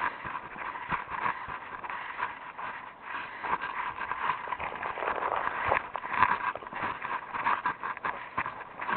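Footsteps of a person walking, a continuous run of short taps.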